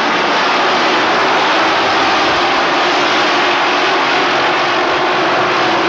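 A field of race trucks' engines running together around the oval, a steady, dense engine noise that holds level throughout.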